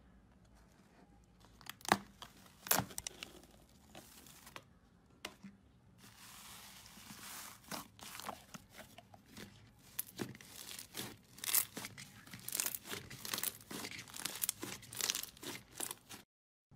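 Hands squeezing and kneading foamy green slime, with air pockets popping and crackling. A couple of louder snaps come about two seconds in, and the crackling grows dense in the last third.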